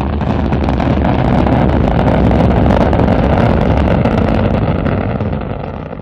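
Animated sound effect of a spacecraft's upper-stage rocket engine firing after stage separation: a loud, steady rumble that swells slightly and then fades over the last second or so.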